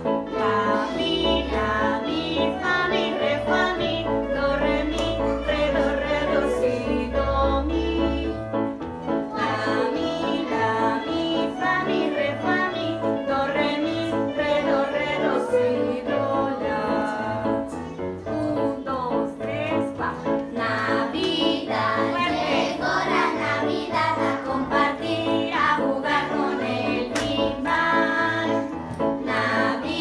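A group of children playing electronic keyboards together and singing along, over a steady repeating low beat.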